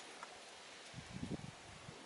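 Faint handling noise of parts being fitted by hand: a light click, then a few soft knocks about a second in, over a low hiss.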